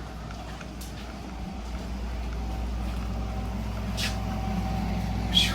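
Steady low mechanical hum, slowly growing a little louder, with a few sharp clicks: one about a second in and two near the end.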